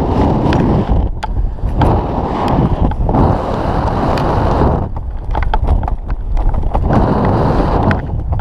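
Wind buffeting a helmet-mounted camera's microphone while the skydiver descends under an open parachute canopy. The rumble swells and eases every second or two, with scattered small clicks and rustles.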